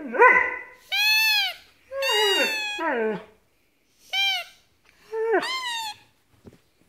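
Siberian husky vocalising in about five whining "woo" calls that rise and fall in pitch, the third longer and sliding downward.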